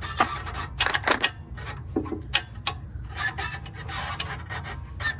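Irregular metal scraping and rubbing, in short uneven strokes, as a bolt is forced against an exhaust flange that it will not go through.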